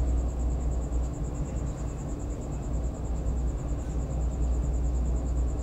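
Steady background noise: a constant low hum with a thin, high, pulsing trill running over it.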